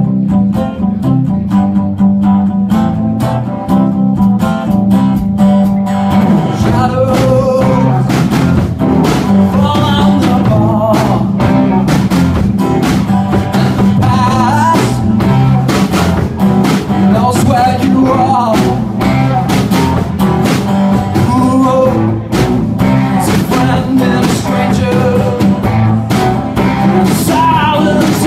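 Live blues-rock band playing a song: strummed acoustic guitar, electric bass, electric guitar and drum kit, with a man singing lead vocals.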